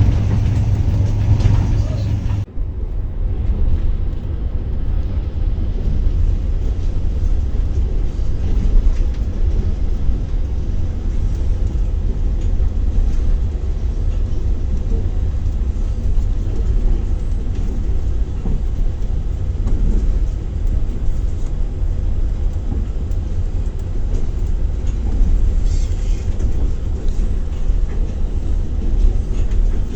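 Passenger train running on rails, a steady low rumble. The sound changes abruptly about two seconds in, at a cut.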